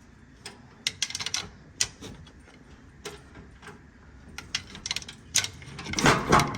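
Scattered sharp metallic clicks and taps of tools and parts on the diesel engine, then a louder scraping rattle about six seconds in.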